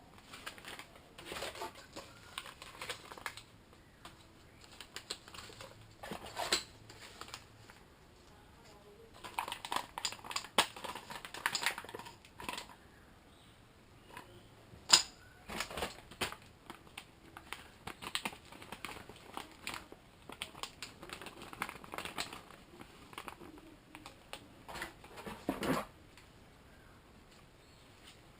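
Packaging and parts being handled by hand: irregular clicks, taps and crinkling, with a busier stretch of rustling about a third of the way in and a few sharper single clicks.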